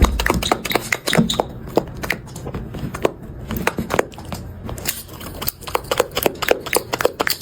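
A dog eating greedily, chewing and crunching its food in a quick, irregular run of crunches several times a second.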